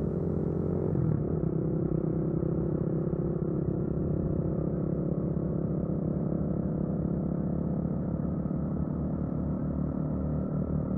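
Dirt bike engine running at a steady speed while riding, with a slight change in its note about a second in.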